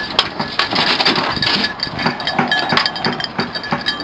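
Small bells on beagles' hunting collars jingling in quick, irregular shakes, the ringing growing clearer about halfway through.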